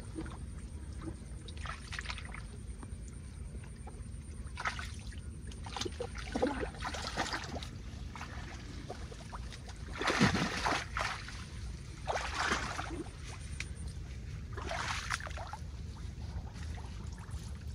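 Leaves and stems rustling and brushing in short, irregular bursts as someone pushes through dense garden plants and weeds on foot, the loudest a little past halfway, over a steady low rumble.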